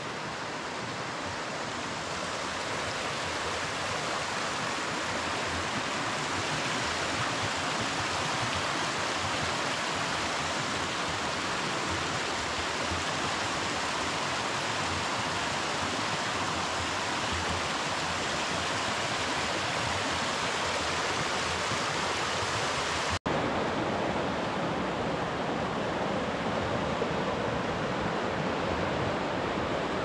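Mountain stream rushing over stones in a steady, even wash of water noise. There is a brief break about three-quarters of the way through, after which the rushing continues a little duller.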